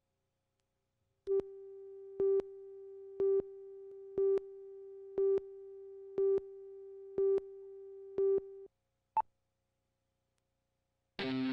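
Videotape leader countdown: a steady low tone with a louder beep about once a second, eight beeps in all, after which the tone stops. A single short, higher beep follows, and music starts just before the end.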